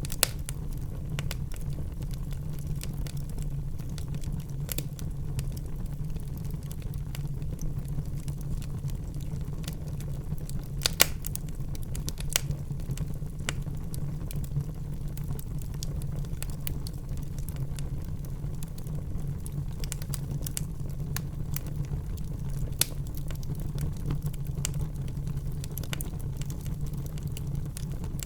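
Wood fire burning in a fireplace: a steady low rumble of the flames with scattered sharp crackles and pops of burning wood, a few louder snaps here and there.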